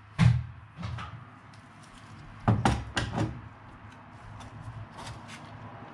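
Knocks and clatter of a metal lure-holding clamp stand being handled and set down on a spray booth floor: a sharp knock near the start, another about a second in, a quick run of three or four knocks around the middle, then light ticks.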